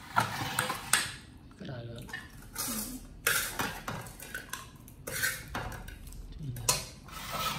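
Kitchen utensils clinking, knocking and scraping against pots and dishes in irregular bursts, as in cooking.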